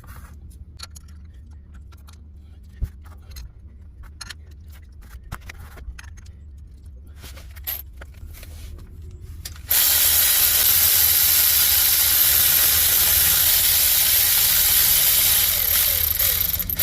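Faint scattered clicks of tools and hardware while the engine mount bolts are put back in loosely. About ten seconds in, a loud steady hiss starts abruptly and runs for about seven seconds before cutting off.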